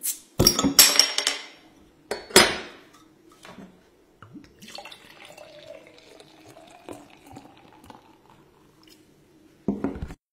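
Glass clinking and clattering sharply a few times, then a softer stretch of liquid pouring and fizzing, and another short clink near the end.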